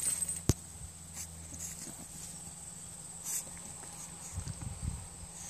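Pug puppy snuffling and moving about in grass, a few faint short sniffs and soft thuds, with one sharp click about half a second in.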